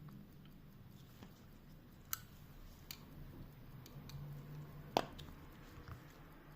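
A few faint, scattered clicks and light taps of small objects being handled, the sharpest about five seconds in, over a low steady hum.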